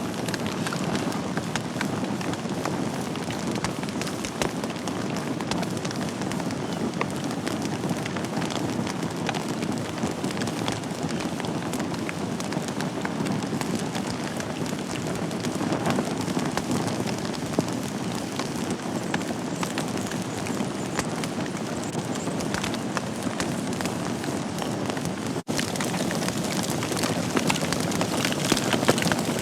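Wood fire burning in a fireplace: a steady rushing hiss with frequent small crackles and pops from the burning logs. The sound drops out for an instant about 25 seconds in.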